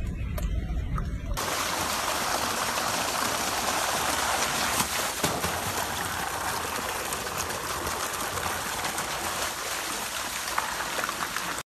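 Water rushing and splashing in a small concrete pool as a pygmy hippo wades and churns it, a steady rush with scattered splashes. It starts about a second in, after a low rumble, and cuts off suddenly near the end.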